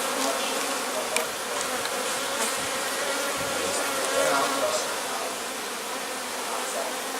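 A large swarm of honey bees buzzing steadily around an opened hive while its comb is being cut out, with a few small clicks and knocks of handling.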